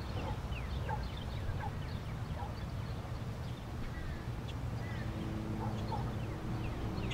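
Faint birds chirping in short scattered calls over a low, steady outdoor rumble.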